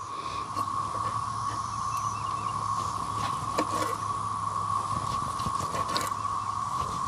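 A steady chorus of cicadas droning at one pitch, with a few faint clicks and scrapes of a knife slicing steak on a wooden cutting board.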